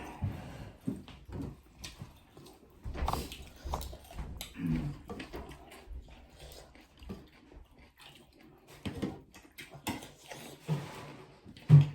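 Close-up eating sounds: irregular chewing, lip smacks and small wet clicks from people eating chicken curry and dhido, with a short louder low sound near the end.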